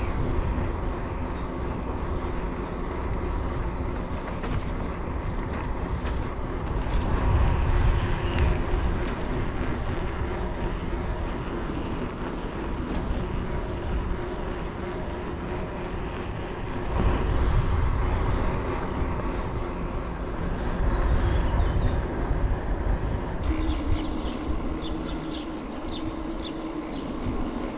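Mountain bike rolling along a gravel path: low rumble of the tyres and wind on the microphone, with rattling and clicking from the loaded bike over the rough surface. Near the end the bike moves onto a tarmac street and the rumble eases.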